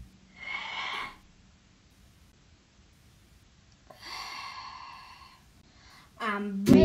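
Two long breathy sighs, about three seconds apart, during a break in the music. Near the end the guitar and singing come back in.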